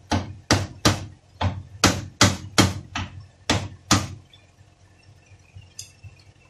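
Hand hammer striking metal at the top end of a Toyota Passo steering rack clamped in a vise: about ten sharp blows, two or three a second, stopping about four seconds in.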